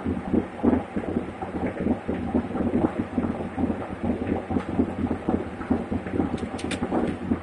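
408 cubic-inch Windsor small-block V8 with a solid roller cam and AFR heads, idling as heard inside the truck's cab, with a steady low hum under an uneven, pulsing beat. A few short high squeaks come near the end.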